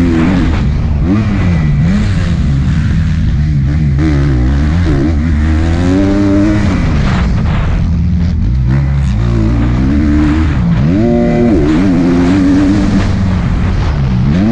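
Dirt bike engine revving and being ridden, its pitch repeatedly rising and falling, settling into a steadier note near the end.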